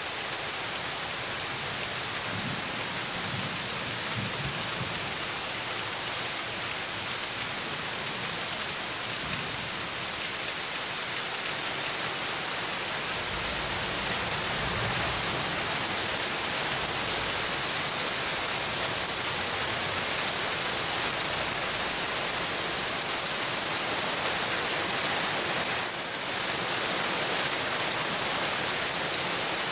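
Steady rain falling hard, a little louder from about halfway through.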